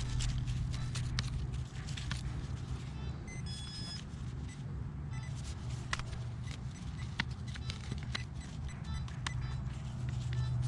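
Metal-detecting gear giving a high electronic beep for about a second and a half, a few seconds in, while a dug plug of soil is searched for the target. Many short clicks and crunches of soil and roots being handled, over a steady low hum.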